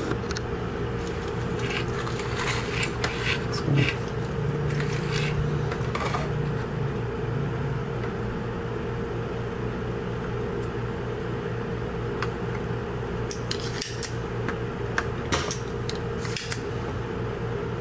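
Scattered small clicks and taps from a soldering iron and a spring-loaded desoldering pump working at a circuit board while stepper-motor pins are unsoldered, over a steady low hum.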